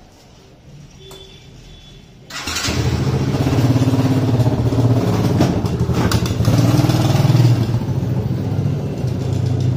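Small kids' quad ATV engine starting abruptly about two seconds in, then running loud with its pitch rising and falling as it is throttled.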